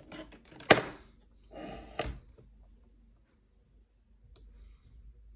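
Two sharp knocks about a second apart, the first the loudest, with a short rustle between them, then quiet apart from a faint click near the end.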